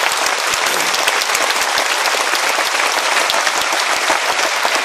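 Theatre audience applauding loudly at the end of a song: many hands clapping densely.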